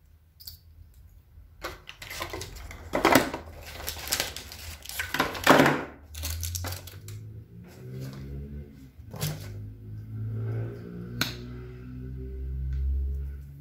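Packaging of a waterproof mascara being opened and handled: bursts of crinkling and rustling through the first half, then a couple of sharp clicks from the mascara tube.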